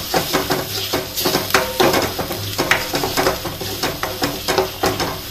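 A spatula scraping and knocking around a metal kadai, stirring thick spiced masala gravy as it fries, in quick repeated strokes a few times a second.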